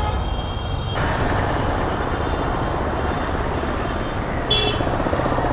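Motorcycle engine idling with passing road traffic, a steady low rumble under a hiss that grows louder about a second in. About four and a half seconds in comes a brief high-pitched beep.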